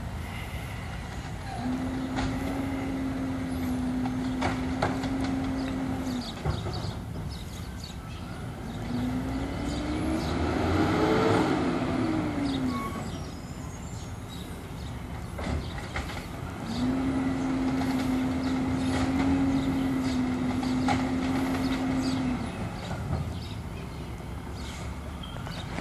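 Amrep automated side-loader recycling truck working nearby over a low engine rumble: a steady drone for about five seconds, then the engine rising and falling in pitch in the middle, then another steady drone of about five seconds. The steady stretches are typical of the hydraulic arm cycling a cart, with the engine revving as the truck moves on in between.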